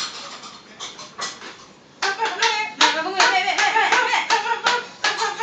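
Hand clapping that breaks out about two seconds in, quick and continuous, with excited voices over it.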